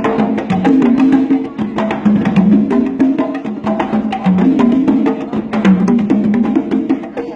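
Live band music at a sound check: a rhythm of sharp wooden percussion clicks over changing low pitched notes.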